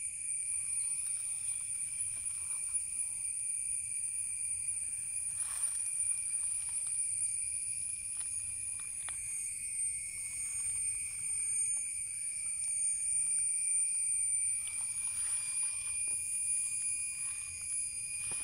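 Insect chorus outdoors: a steady, shrill, high-pitched drone that holds without a break, with a few faint clicks.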